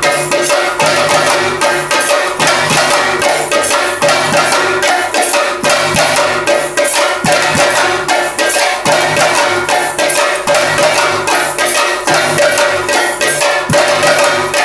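Theyyam drumming: chenda drums and metal hand cymbals playing a fast, dense, unbroken rhythm over a steady held tone.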